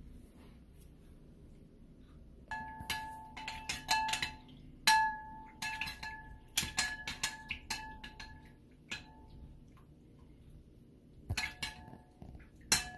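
A metal fork clinking against a ceramic bowl while stirring raw chicken in marinade, each tap leaving a short ringing tone. The clinking comes in two spells: a busy one from about two and a half seconds in, and a shorter one near the end.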